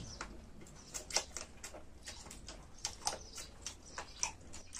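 Eating noodles: a fork and spoon clicking against a metal bowl in short, irregular ticks, mixed with slurping and chewing.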